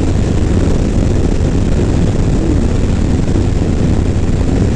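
Harley-Davidson Low Rider S motorcycle with a Milwaukee-Eight 117 V-twin running steadily while under way, mixed with wind and road rush on a helmet-mounted microphone.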